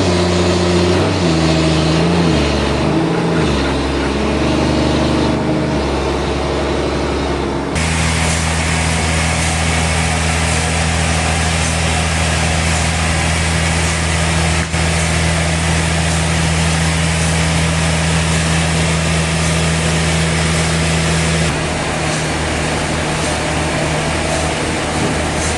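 Sawmill machinery running: a steady, loud motor hum over a wide hiss. The hum shifts in pitch a few times early on, then changes abruptly about eight seconds in to a steadier, fuller running sound.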